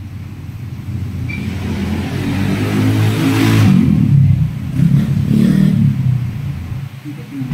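An engine running close by, revving up and growing louder to a peak about halfway through, then easing off.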